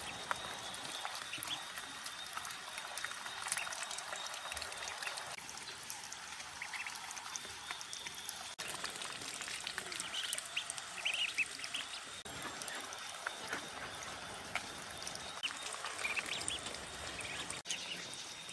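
Young call ducks giving short, soft quacks and peeps now and then as they feed, over a faint steady hiss with small scattered clicks.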